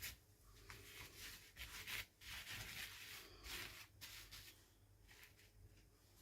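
Soft rustling and rubbing of toy packaging being handled during unboxing, in short irregular bursts that die away about four seconds in.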